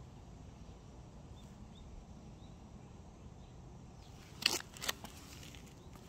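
Steady low outdoor background rumble, broken about four and a half seconds in by two short sharp clicks less than half a second apart.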